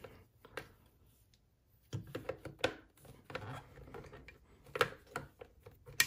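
Plastic parts of a cordless stick vacuum's floor head being handled as its detachable roller brush is worked back into place: scattered light clicks, taps and rubbing scrapes, starting about two seconds in after a quiet moment.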